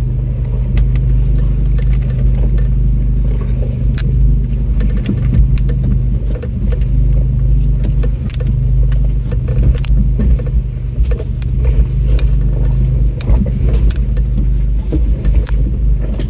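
4x4 truck's engine running low and steady as it crawls over a rocky trail, with frequent clicks, knocks and rattles from the body and tyres working over rocks.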